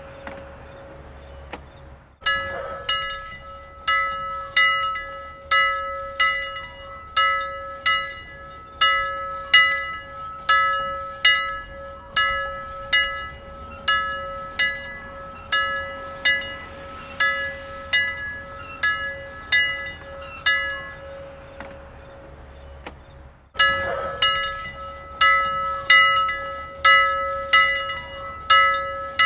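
Church bell ringing, struck steadily about every two-thirds of a second, with its low hum note sounding on between strokes. The strokes die away for a moment about two-thirds of the way through. The ringing breaks off and starts again abruptly twice.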